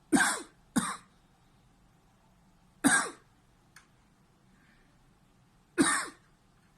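A man's short, sharp coughs: two in quick succession near the start, then single coughs about 3 and 6 seconds in. The coughs are a reflex set off by pressure on a vagus nerve schwannoma in the neck.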